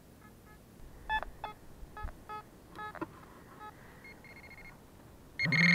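Fisher F44 metal detector with an aftermarket DD coil giving a quick series of short pitched target beeps as the coil sweeps over a target. Near the end a handheld pinpointer sounds a higher steady tone, then a loud buzzing tone for about half a second as it closes in on the target in the dug soil.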